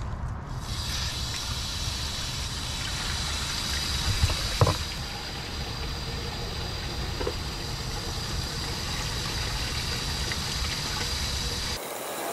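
Water running steadily into a sewer cleanout pipe, filling the drain line for a leak test, with one short knock about four and a half seconds in. The sound breaks off abruptly near the end.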